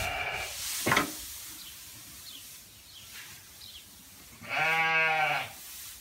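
One bleat from a farm animal, about a second long, near the end. Before it, loose hay rustles and swishes as it is tossed with a pitchfork.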